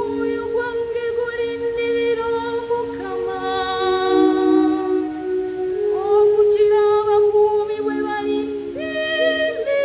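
Church choir of women's voices singing a responsorial psalm hymn in Luganda, several parts in harmony, with long held notes and short slides between pitches.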